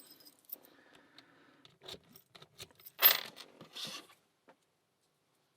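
Key and small stainless steel padlock being handled as the key is pulled and the lock is locked back up: scattered light metal clicks, then a loud metallic clink-and-rattle about three seconds in and a shorter one just before four seconds.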